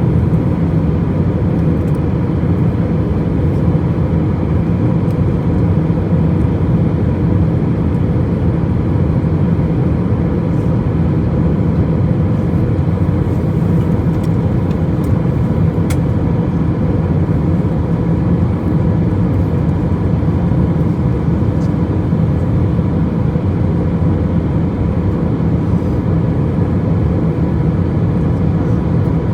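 Airplane cabin noise: a steady, even low rumble that does not change, with a faint steady tone above it.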